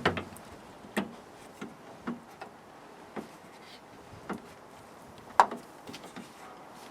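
Irregular small clicks and knocks, roughly one a second, from the rear door handle and lock of a 1988 Renault 5 Extra van being prodded and worked by hand while looking for what holds it in; the loudest knock comes about five and a half seconds in.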